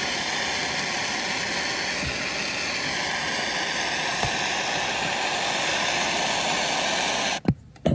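Handheld gas torch flame hissing steadily as it heats the capped end of an oxalic acid vaporizer pipe. The hiss cuts off suddenly near the end, followed by two short clicks.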